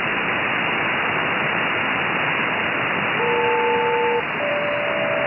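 Shortwave receiver static hiss on an aeronautical sideband channel, then about three seconds in a SELCAL selective-calling signal: two pairs of steady tones sounded together, each pair about a second long, one after the other. These tones are the code that ground control sends to switch on one particular aircraft's radio.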